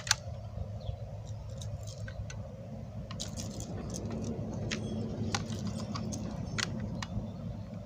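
Scattered small clicks and rattles from a Barra 1866 lever-action BB gun being tilted and worked while its BBs fail to roll into the feed port, after a single sharp click at the very start. A steady low rumble runs underneath.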